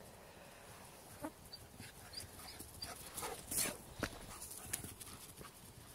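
Dogs playing, giving a few short, scattered barks and yips, the loudest about three and a half seconds in.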